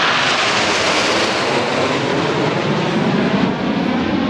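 BAE Hawk T1 jets of the Red Arrows flying in formation, their turbofan engines giving a loud, steady rushing noise.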